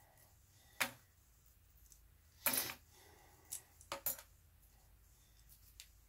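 A few short, faint airbrush spurts, the longest about two and a half seconds in, with small clicks between. The airbrush is spitting dark paint, which the painter takes for a clog clearing.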